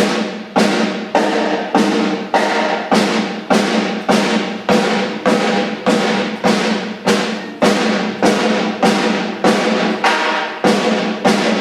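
Snare drum struck over and over at an even pace, roughly one hit every 0.6 seconds, each hit ringing briefly: the snare being sound-checked on its own.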